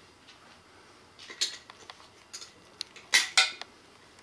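Hard plastic toy parts clicking and clattering as the toy is handled and pressed: a string of sharp clicks and knocks, the two loudest close together about three seconds in.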